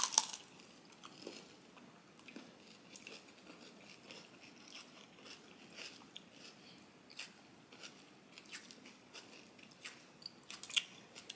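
A crunchy bite into a cornflake-coated ice cream bar, followed by quiet chewing with small scattered crunches, and another sharp crunch near the end.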